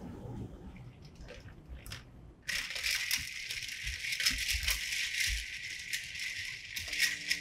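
Ice cubes clattering and clinking in a steel bowl of ice water as cooked noodles are swished and rinsed by hand to cool them, starting suddenly about two and a half seconds in. Before that, only faint drips and small clicks of water.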